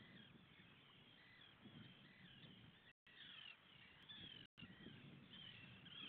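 A flock of seabirds calling faintly, many short rising-and-falling calls overlapping one another, over a low background wash. The sound drops out completely twice for a moment, about halfway through.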